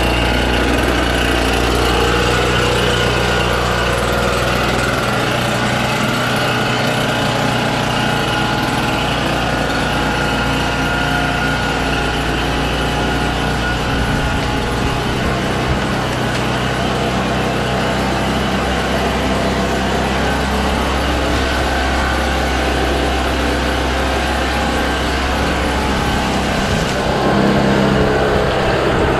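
RedMax EBZ8050 backpack leaf blower's two-stroke engine running continuously, getting a little louder near the end as it blows leaves across the pavement.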